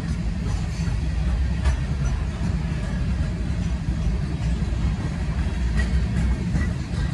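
CSX freight train of flatcars loaded with armoured vehicles rolling past at a grade crossing: a steady low rumble of steel wheels on rail, with scattered clicks and clanks.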